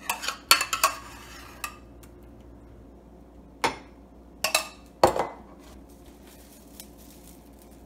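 Glass bowls and kitchenware clinking and knocking as they are handled and set down on a counter and stovetop. A quick flurry of sharp clinks at the start, then a few separate knocks a few seconds later.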